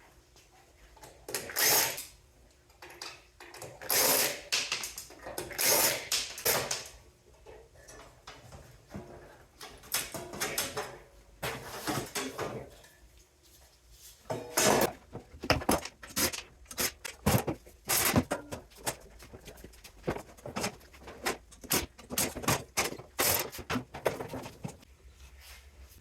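Irregular knocks, clicks and rattles of hand tools and metal parts as a scrap cooling unit is taken apart, coming in short clusters that grow busier in the second half.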